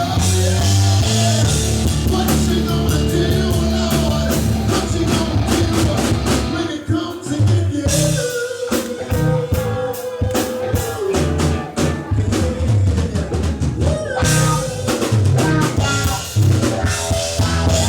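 A live rock band plays loudly: drum kit, bass and electric guitar. About a third of the way in the sound thins out to one long held note over scattered drum hits, then the full band comes back in.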